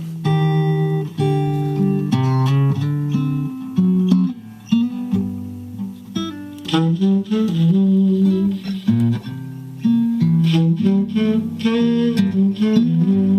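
Blues guitar music playing back over a car audio system: picked notes and strummed chords, with no singing.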